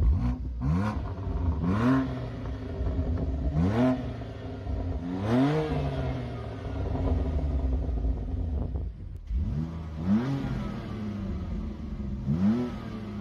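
BMW M2 Competition's 3.0-litre S55 twin-turbocharged inline-six exhaust being blipped repeatedly, each rev a quick rise in pitch that falls back to idle, about seven revs in all. After a cut about nine seconds in, two more free revs in neutral are heard from inside the cabin.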